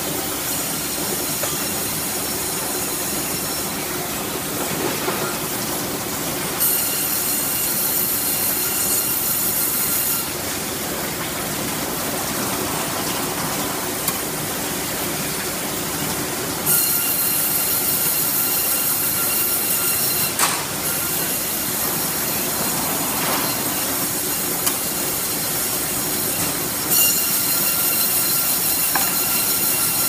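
CNC sawmill running with a steady mechanical noise, broken by three stretches of a louder high-pitched squealing whine as the saw cuts boards from a log fed through on the carriage. The longest stretch lasts about nine seconds. There are a couple of sharp knocks.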